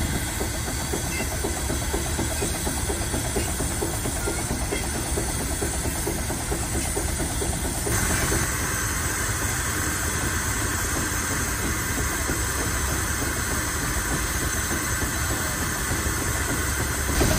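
Steam traction engine running: steady mechanical running noise with hiss. The sound changes character abruptly about eight seconds in.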